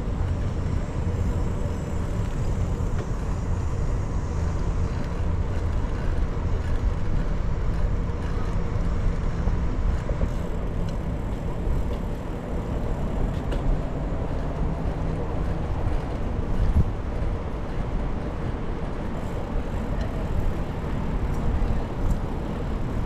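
Steady low rumble of wind and rolling noise picked up by a camera riding on a moving bicycle.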